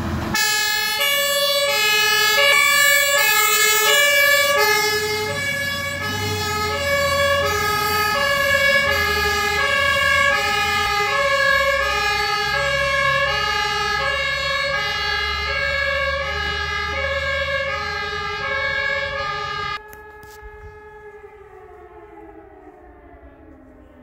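German two-tone emergency horn (Martinshorn) on departing fire-brigade vehicles, alternating evenly between a low and a high note over a steady higher siren tone. About 20 seconds in the level drops suddenly, leaving a siren winding down with slowly falling pitch.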